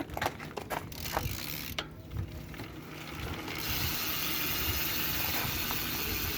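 Rear freehub of a 2020 Norco Rampage 2 dirt-jump bike, its pawls clicking as the wheel turns: separate clicks at first, then a steady ratcheting buzz from a little past halfway.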